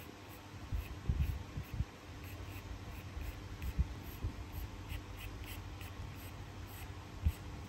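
Graphite pencil sketching on paper: a series of short, light scratching strokes, with soft low thumps.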